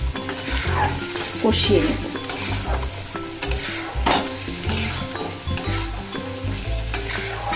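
A metal spatula stirring and scraping thick potato-and-spice masala around a karahi in repeated strokes, with the masala sizzling as it is fried down.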